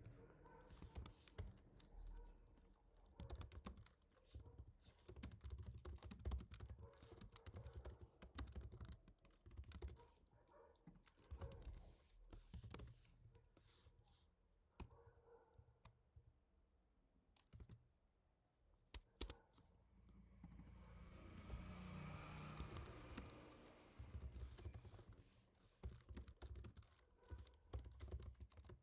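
Typing on a computer keyboard, quietly: bursts of irregular keystrokes with short pauses between them. About two-thirds of the way through, a soft rushing sound lasts a few seconds.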